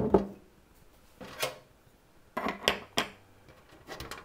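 A glass pot lid and a metal cooking pot being handled on a stovetop: a sharp knock at the start, then several lighter clinks and knocks as the lid is set onto the pot.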